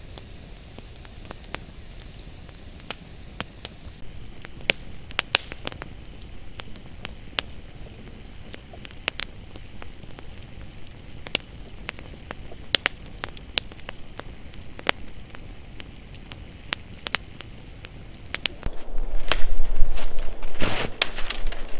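Wood campfire crackling, with sharp irregular pops over a low, steady hiss. Near the end it gives way to a louder spell of rustling and knocking.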